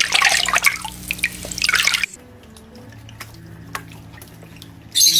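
Running, splashing water with dripping for about two seconds, cut off abruptly, then a faint steady hum with a few ticks and a brief high-pitched chirp near the end.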